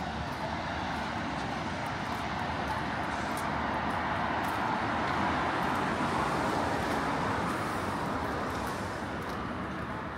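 Road traffic on a rain-wet street, with tyres hissing on the wet surface. The hiss swells as a vehicle passes around the middle and then fades.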